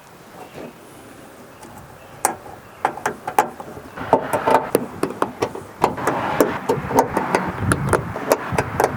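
Plastic trunk lid liner being handled and pressed back onto the trunk lid: a run of sharp clicks and knocks from its push-in clips, with a rustling scrape of the panel. It starts sparsely about two seconds in and gets busier after about four seconds.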